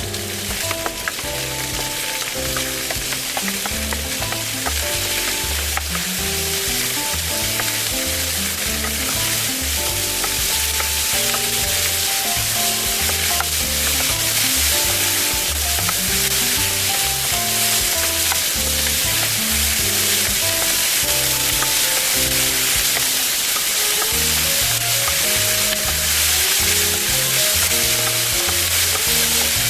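Food sizzling in a hot frying pan, with a few light clicks of a utensil early on. The sizzle grows louder over the first several seconds and then holds steady. Background music with a steady beat plays underneath.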